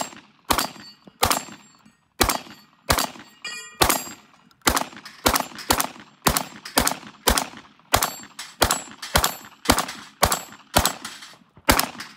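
A rapid string of about twenty gunshots from a long gun, roughly two a second, in a multigun stage run. Steel targets ring after some of the hits.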